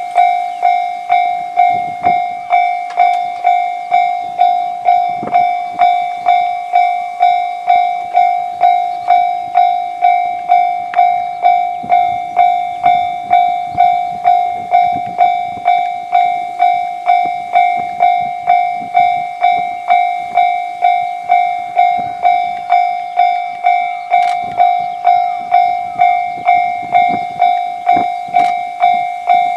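Japanese railway level-crossing warning bell ringing in a steady, even rhythm of a bit under two strokes a second, signalling an approaching train.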